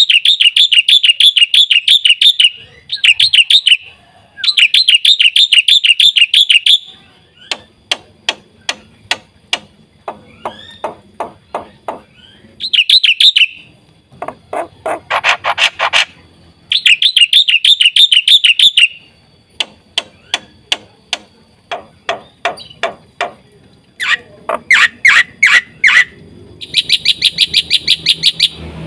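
Black-winged starling (jalak putih) singing loudly in bursts. Fast buzzy trills alternate with strings of sharp clicking notes and short whistled phrases, with brief pauses between.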